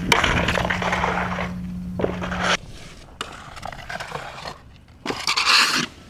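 Snowboard sliding along a ledge rail: a long grinding scrape with a steady low hum that cuts off abruptly about two and a half seconds in, then a second, shorter loud scrape near the end.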